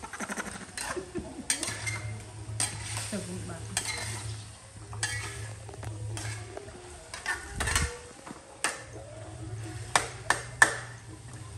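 A metal spatula scraping and clinking against a stainless steel wok as vegetables are stir-fried, with sizzling from the hot pan under the strokes. The sharpest, loudest clinks come in a quick cluster near the end.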